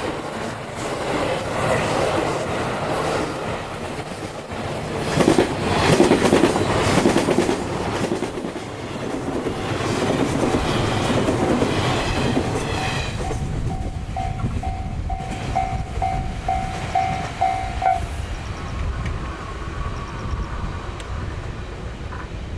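A train runs past over the level crossing, its wheels clattering in a clickety-clack over the rail joints and loudest a few seconds in. As it recedes, the crossing's warning bell is heard ringing in steady pulses about twice a second, then it stops about 18 seconds in.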